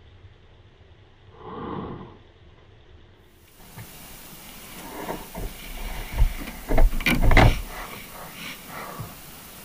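Underwater camera housing's hiss, with a short muffled bump about a second and a half in and, after a cut, a run of knocks and scrapes, loudest in a cluster about two thirds of the way through.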